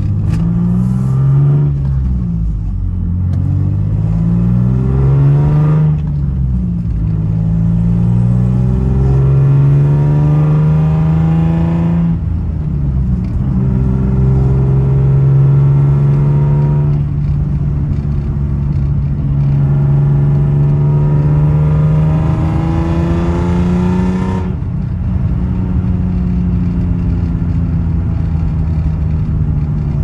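The 2004 Infiniti G35 sedan's 3.5-litre V6, heard from inside the cabin while accelerating through the gears. The engine note climbs and drops back at each upshift about five times, then holds steady for the last few seconds.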